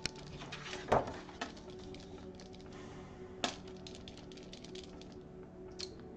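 Niutop pastel acrylic paint marker being shaken, its mixing ball rattling in a quick run of small clicks that dies away about five seconds in. There are two louder knocks, about a second in and about three and a half seconds in.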